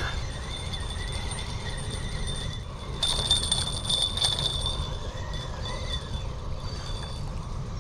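Spinning reel being wound in with a small flathead (magochi) on the line, rattling more from about three seconds in, over a steady low rumble.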